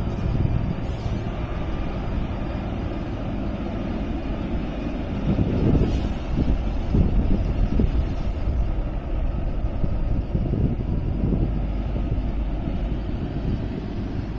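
Heavy diesel trucks running as they pass on a mountain curve, a steady low engine rumble that grows louder for a couple of seconds around the middle, with wind on the microphone.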